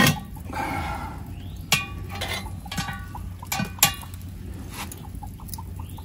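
A few sharp metal clinks from a cast-iron Dutch oven and its iron lid lifter as the pot is settled on hot coals and its lid adjusted. A chicken calls once for about a second near the start.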